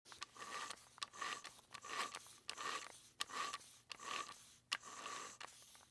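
Rotary setting dial on a Mitsubishi D700 VFD's operator panel being turned by a fingertip: quiet, repeated scraping strokes, about one and a half a second, each with a light click.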